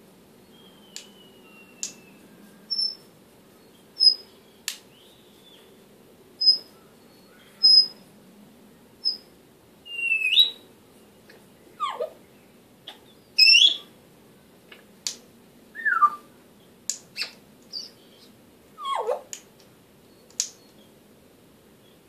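African grey parrot vocalizing in a string of short sounds: sharp clicks, brief high whistled notes, and about halfway through, longer calls that swoop up or fall steeply.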